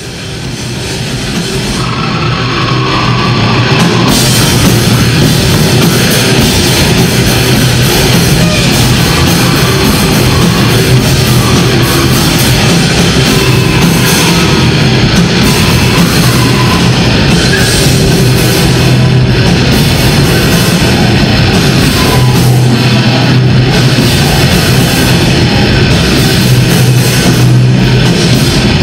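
Grindcore band playing live: distorted electric guitars and drum kit in a loud, dense wall of heavy metal, fading in over the first few seconds.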